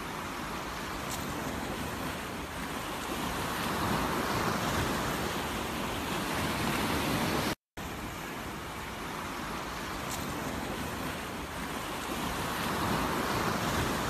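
Sea surf washing on a pebble and boulder shore: a steady rushing noise that swells louder and falls back, breaking off for an instant about halfway through.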